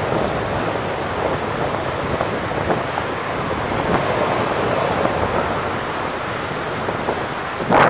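Steady wind noise buffeting the microphone outdoors, with a brief louder burst near the end.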